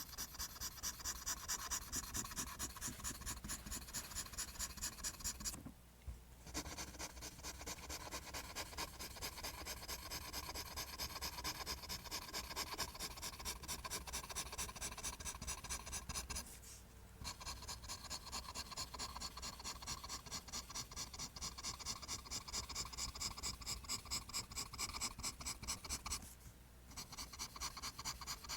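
Pencil drawing lines on paper in rapid repeated strokes, about three or four a second, with three short pauses.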